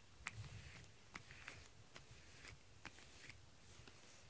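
Rubber grooming brush stroking through a cat's fur: quiet, short scratchy strokes, about two a second.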